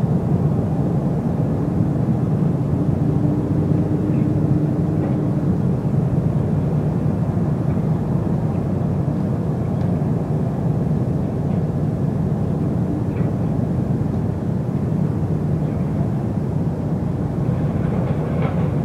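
Steady low engine rumble, with a faint hum over it for a few seconds about two seconds in.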